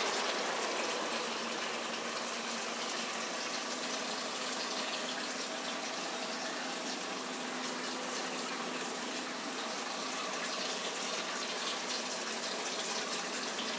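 Dirty rinse water gushing steadily out of a hose into a plastic bucket, on the first rinse of a car's cooling-system flush, with a faint steady hum beneath it.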